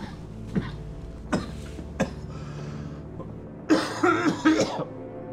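A man coughing: a few short, single coughs, then a harder fit of several coughs close together about four seconds in, the loudest part.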